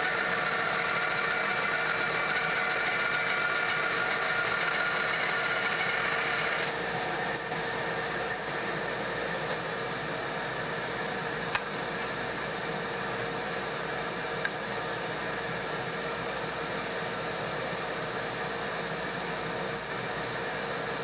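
Old Jet bandsaw running steadily while resawing a board against a shop-made fence, a constant motor and blade noise; its tone changes slightly about a third of the way in.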